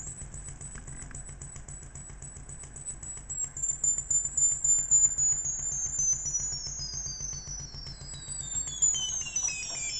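MFOS Alien Screamer DIY noise box's oscillator sounding a very high-pitched, rapidly pulsing electronic tone. Over the second half its pitch slides steadily down as a knob is turned.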